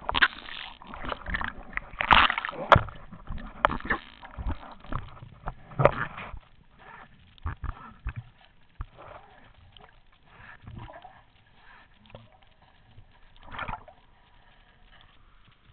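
Water splashing and sloshing from a swimmer's strokes, in irregular splashes that are loud and frequent for the first six seconds, then fainter and sparser.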